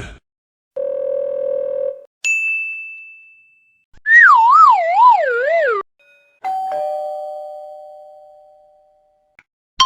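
A run of separate stock sound effects: a steady buzzer for about a second, then a single high ding that rings out, then a wavering whistle that slides downward, then a two-note ding-dong chime that slowly fades.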